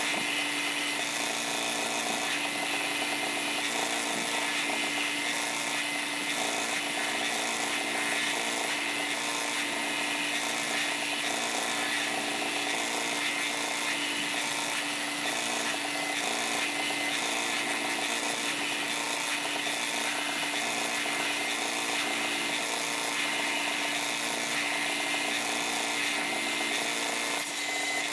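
Scheppach BTS 900 belt sander running with a steady motor hum while a steel knife blade is ground against its sanding belt. The grinding hiss swells and fades in a regular rhythm about once a second as the blade is worked across the belt.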